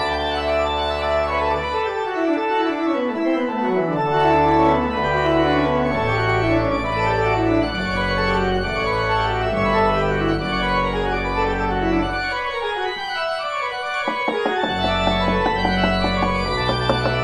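Pipe organ music: sustained chords over a stepping pedal bass, with quicker falling figures in the upper parts. A few light taps come in near the end.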